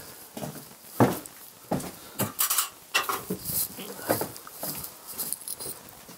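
Metal tools and parts being handled: an irregular string of sharp clinks and knocks, the loudest about a second in.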